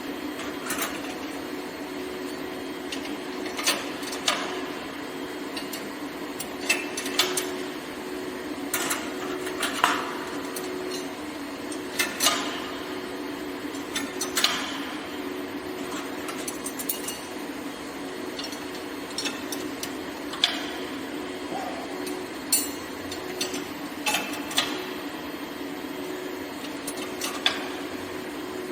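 Rebar cage welding machine running with a steady hum, with sharp metallic clanks of steel coming irregularly every second or two.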